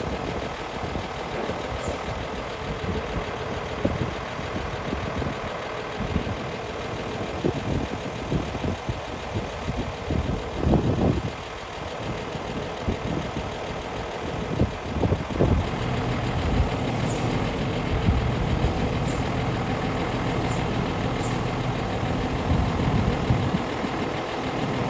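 Scania tow truck's diesel engine running steadily while it drives the hydraulics that tilt the flatbed down and draw it back. A steady hum runs throughout, and a few knocks and clunks from the moving bed come around the middle.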